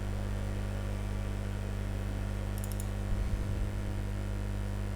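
Steady low electrical mains hum, with a few faint computer-mouse clicks a little over two and a half seconds in and some soft knocks just after.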